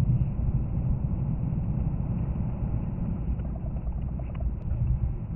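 Steady low rumble of a car's engine and tyres on a slushy, snow-covered road, heard from inside the cabin at about 60 km/h.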